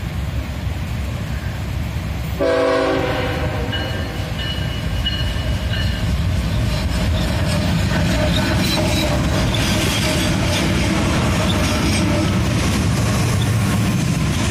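BNSF diesel freight locomotives blow the horn in one long blast starting about two seconds in, then pass close by. The engine noise and the wheels on the rails grow louder as the locomotives come alongside.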